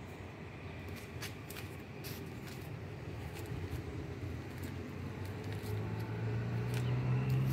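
Low rumble of a motor vehicle engine, a steady hum that grows louder near the end, with a few light clicks.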